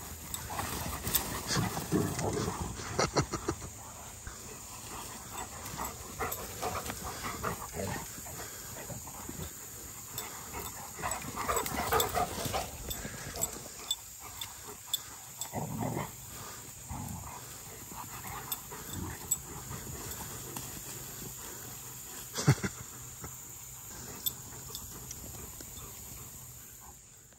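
Akitas playing rough and chasing each other on grass: dog play noises coming in irregular bunches, heaviest in the first few seconds and again around twelve seconds in. A single sharp knock about twenty-two seconds in is the loudest sound, over a steady faint high hiss.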